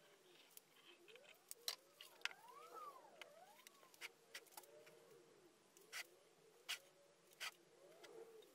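Faint clicks and knocks of 3D-printed plastic speaker enclosure parts being fitted together by hand, with a few faint squeaks that rise and fall as plastic slides against plastic.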